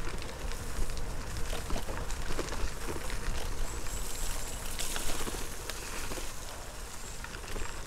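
Wind buffeting the microphone in a low rumble over a steady crackling hiss of gravel-bike tyres rolling along a canal towpath.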